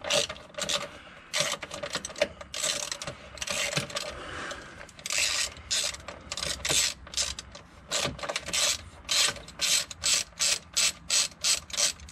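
Socket ratchet clicking through many short strokes as it undoes a lower engine-mount bolt, the strokes coming faster near the end as the bolt frees up.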